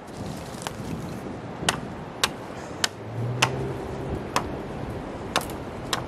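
Seven sharp, irregular blows of a hand tool striking wood, about one a second, over a steady background of wind.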